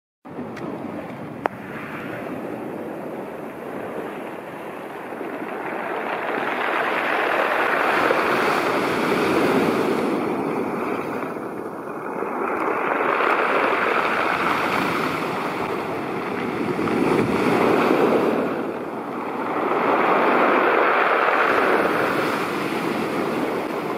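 Sea waves breaking and washing up a pebble beach, the surf swelling and easing every few seconds.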